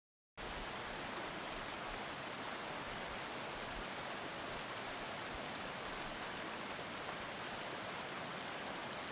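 Faint, steady rushing noise of outdoor river ambience with no distinct events, starting abruptly just after a moment of silence at the very beginning.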